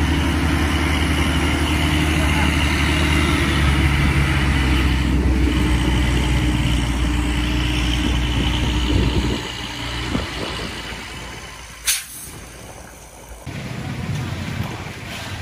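Diesel engine of a Hino fuel tanker truck running close by as the truck passes, loud and steady for about nine seconds, then falling away. Quieter outdoor ambience follows, with a single sharp click near the end.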